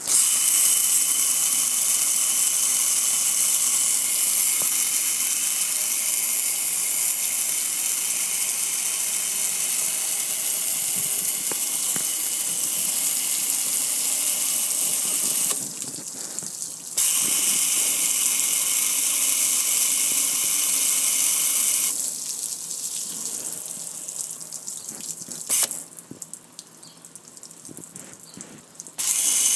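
A steady hiss of water spraying onto a gas grill, splashing off its lid and control panel and pouring onto the concrete. It breaks off briefly past the middle, weakens later, drops away for the last few seconds and comes back at the very end.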